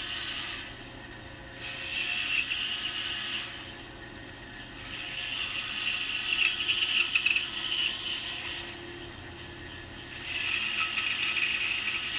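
Pegas scroll saw cutting a small wooden block, a rasping saw-through-wood sound that comes in bursts of a few seconds each. Between the bursts it falls back to a quieter steady run.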